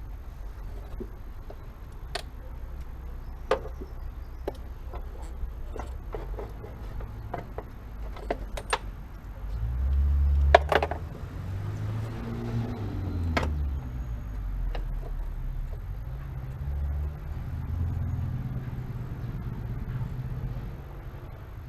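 Scattered metallic clicks and clinks of hand tools and parts while the clutch pedal assembly is being fitted, with a low rumble that swells about halfway through and fades before the end.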